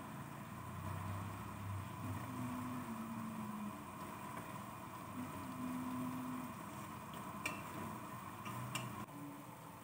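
Cooking spoon stirring sliced onions in an aluminium pot, over a steady hiss, with a few light knocks of the spoon against the pot near the end.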